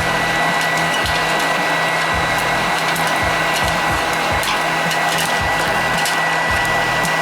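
Electric hot-air popcorn popper running: a steady fan-and-heater blowing noise with a thin high whine, and light irregular clicks and rattles throughout.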